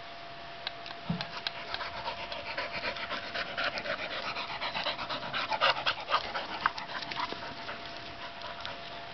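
English Springer Spaniel panting fast with an apple held in her mouth, a quick even run of breaths that trails off near the end.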